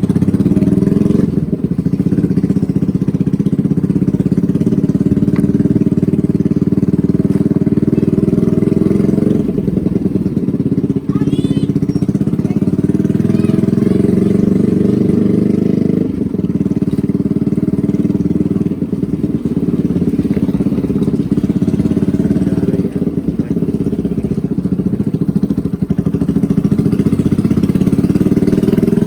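Yamaha R15's 150cc single-cylinder engine running as the bike is ridden, a loud steady drone whose level dips briefly about 10 and 16 seconds in. A short gliding higher tone sounds about 11 seconds in.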